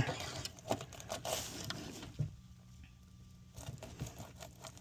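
Faint handling noises as a large shad is put on a hook: small clicks and rustles, a single knock about two seconds in, then it goes quiet.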